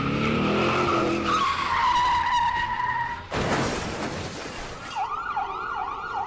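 Car tyres screeching and an engine revving, then a sudden crash impact a little over three seconds in. About five seconds in an emergency siren starts, sweeping up and down about two and a half times a second.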